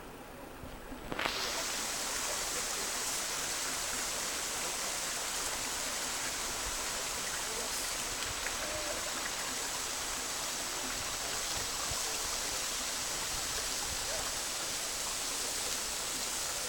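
Steady rushing hiss of a tall waterfall's falling water, cutting in suddenly about a second in.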